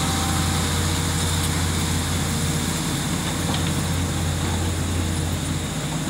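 Caterpillar 320D hydraulic excavator's six-cylinder C6.4 diesel engine running steadily with a low drone.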